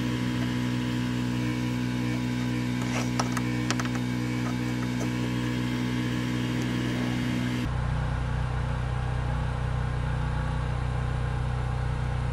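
Steady low hum made of several even tones, with a few faint clicks about three seconds in; the hum changes its tone abruptly about eight seconds in.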